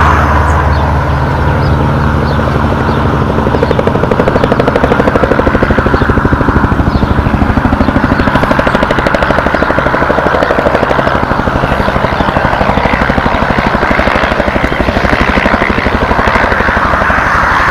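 Bell 222 helicopter flying overhead, its two-bladed main rotor beating in a fast, even pulse over the turbine noise. The rotor beat grows stronger a few seconds in.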